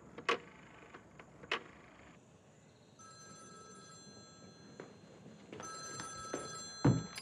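An old-style telephone bell ringing in two long rings, each about two and a half seconds, the second louder. Two short clicks come before the ringing, and a loud thump near the end.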